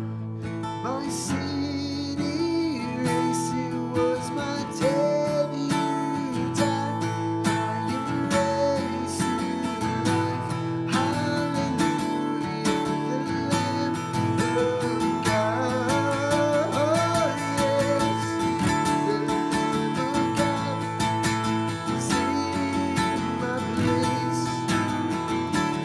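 Slow acoustic guitar music, plucked and strummed, with a melody line that bends above it.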